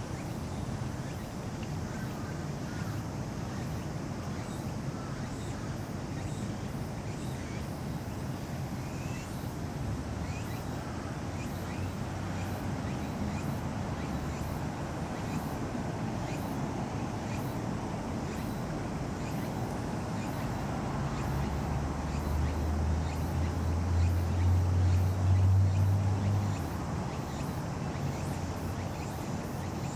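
Steady outdoor ambient noise with a low engine-like hum that swells in the last third and stops abruptly a few seconds before the end.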